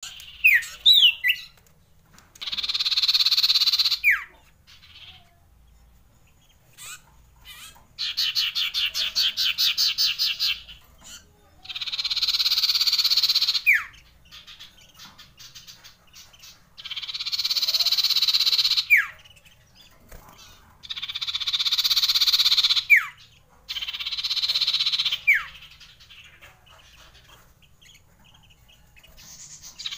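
Common iora singing: a series of long, harsh rolling trills of about two seconds each, repeated every few seconds. One trill is made of rapid even pulses, and most end in a quick whistled slur. A few short chirps come right at the start.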